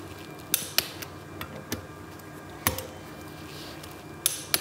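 Click-type torque wrench on the Torx rotor bolts of a motorcycle front wheel, giving about five short, sharp metallic clicks spaced out, each the sign that a bolt has reached its set torque.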